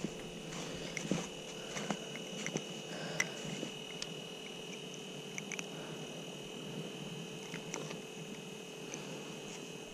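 Faint steady high-pitched whine with a lower hum beneath it, and scattered light clicks from hands unhooking a perch from a jig on the fishing line.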